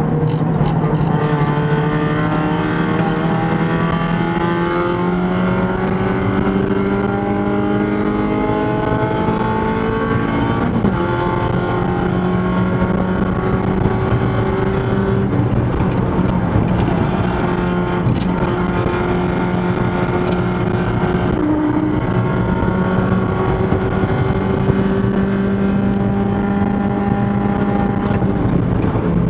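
Spec Miata race car's four-cylinder engine at full throttle, heard from inside the cockpit. Its pitch climbs slowly through a gear, drops suddenly about eleven seconds in at an upshift, then climbs again.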